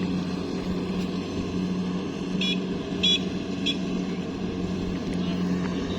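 Rice-paddy hand tractor's diesel engine running steadily under load. Three short high chirps come about half a second apart midway through.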